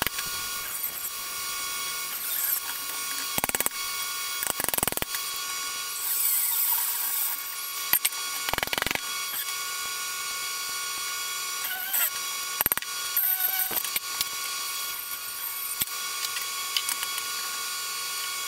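Hand tools working on scrap metal: irregular clicks, knocks and short scrapes over a steady background hum.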